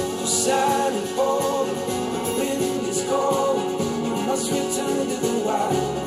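A song with instruments and singing, played through Edifier powered bookshelf speakers and picked up by microphones in the room. The heavy low bass drops out right at the start and comes back near the end.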